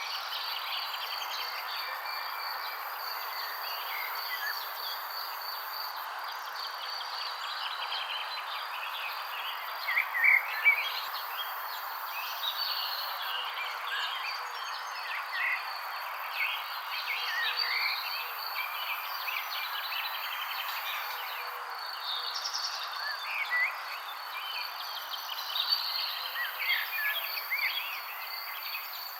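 Songbirds chirping and singing in short, scattered phrases over a steady high-pitched trill and a constant background hiss. A louder cluster of calls comes about ten seconds in.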